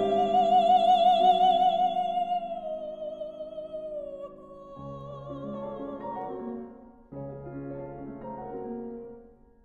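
A mezzo-soprano holds one long note with a wide vibrato over sustained piano chords, easing slightly downward. The voice stops about halfway through and the piano plays on alone in short groups of chords, fading near the end.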